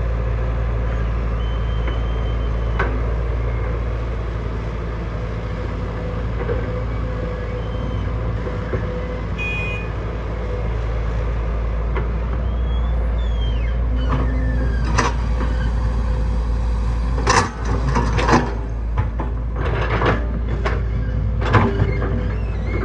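Heavy earthmoving machine's diesel engine running steadily, with a series of sharp metallic clanks and knocks in the second half.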